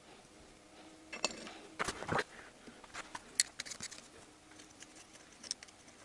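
Light metallic clicks and knocks of a cast-aluminium camshaft bearing housing being handled and set down over the studs of a VAZ-2111 8-valve cylinder head. A cluster of knocks and a short scrape comes about two seconds in, followed by a few scattered clicks.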